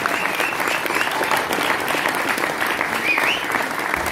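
Audience applauding with a few cheers at the end of a song.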